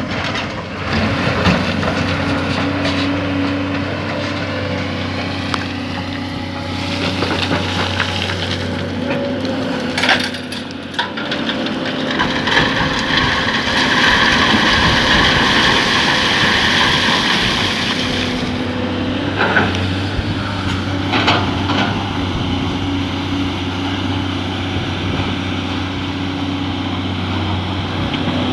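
Excavator diesel engine running steadily under load, with a louder high-pitched whine for several seconds in the middle and a few sharp knocks.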